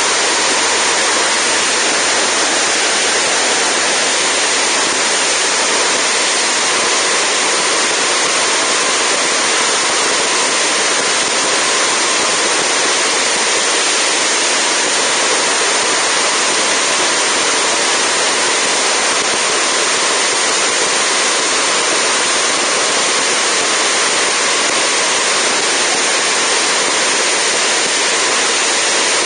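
Steady, even rush of wind and propeller noise from a Zenith STOL CH750 light aircraft in level flight, picked up by a camera outside the cabin by the engine cowling.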